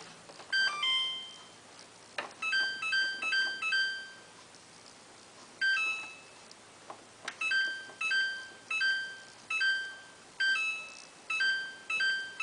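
Samsung WF8804RPA washing machine control panel beeping as the programme dial and option buttons are stepped through: a short electronic beep for each step, with a light click at some presses. A quick falling three-note chime comes in the first second, a few beeps in a row follow, then a steady run of beeps about two a second through the second half.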